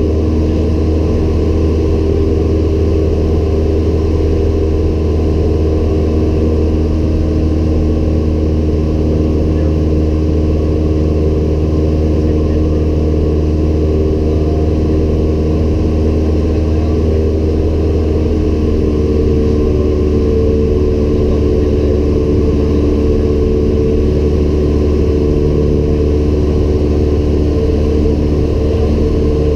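Cessna 172M Skyhawk's four-cylinder Lycoming engine and propeller running steadily in cruise flight, heard inside the cabin as a loud, even drone.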